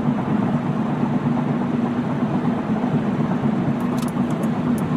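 Steady engine and road hum heard from inside a moving car's cabin, with a few faint clicks about four seconds in.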